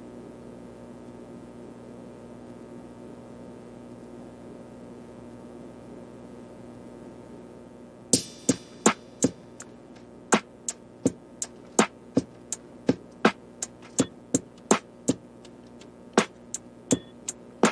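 Background music: a faint steady hum for about eight seconds, then a new track comes in with a steady beat of sharp, clicky percussion, nearly three hits a second.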